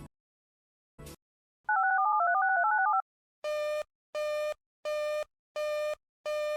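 Emergency alert signalling tones. After a click at the start and another about a second in, a rapid string of touch-tone (DTMF) tone pairs lasts just over a second. Then come five evenly spaced beeps of about half a second each.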